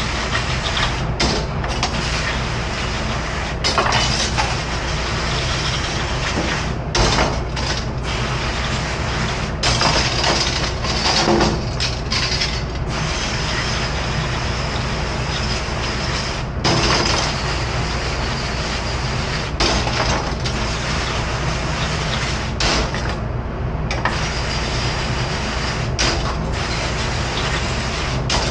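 Commercial pre-rinse sprayer hissing as it sprays water over stainless-steel tongs, with metal utensils clattering every few seconds over a steady low hum.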